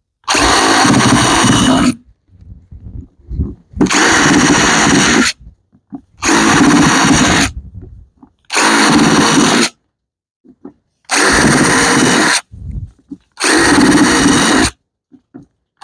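Electric drill running in six short, steady bursts about a second and a half each, boring drainage holes in a planting container.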